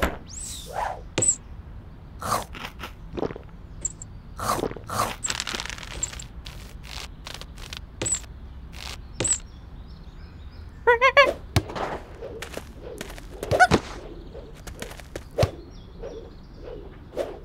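Cartoon sound effects: a string of short thunks, taps and whooshes, with a quick rattling run of rapid pips about eleven seconds in.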